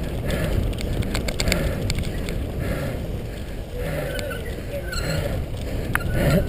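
Cyclocross bike ridden over a bumpy dirt course: a steady rumble of wind and tyre noise on the bike-mounted microphone, with frequent rattling clicks and knocks from the bike.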